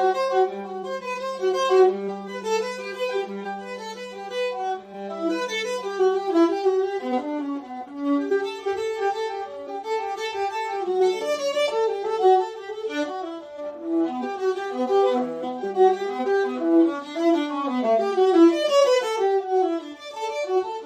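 A viola playing a melody with a steady low note sounding beneath it for about the first six seconds. It is played as part of a test of how different mutes change the instrument's sound and volume.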